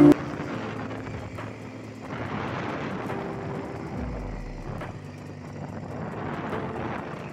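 Motorcycle engine running steadily while riding along a road, under a rush of wind and road noise, with a low thump about four seconds in.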